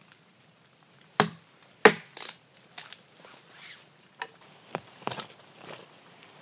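Small hatchet chopping and splitting a stick into kindling: a run of sharp wooden chops and cracks, the two loudest about a second and two seconds in, then lighter uneven strikes.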